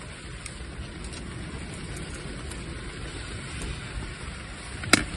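Rain falling on the fabric of a beach fishing shelter, with wind: a steady hiss and low rumble with scattered light ticks. One sharp click comes near the end.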